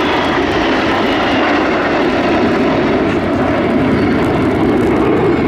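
A close formation of Aermacchi MB-339 single-engine turbojet trainers flying past, giving loud, steady jet noise. A faint whine falls slowly in pitch through the first half.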